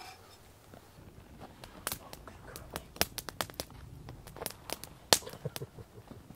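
Wood fire burning in a small folding camp stove, crackling with irregular sharp pops that come thicker from about two seconds in, the loudest a little past five seconds in.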